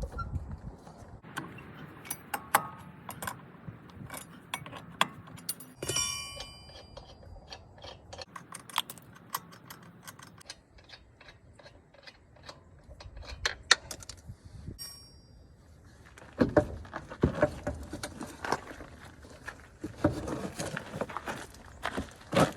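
Metal tools and spare-tire hoist hardware being handled: scattered clicks and knocks, a ringing metal clink about six seconds in and a shorter one near fifteen seconds, then a run of heavier thumps and scuffs as the spare tire is worked free.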